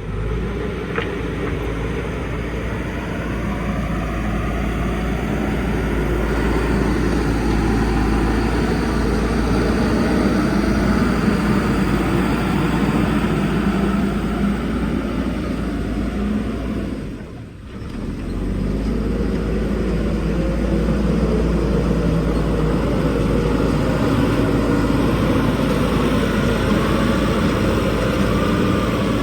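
A motor running steadily, with a pitched hum that slowly drifts up and down. It drops away briefly about seventeen seconds in, then comes back.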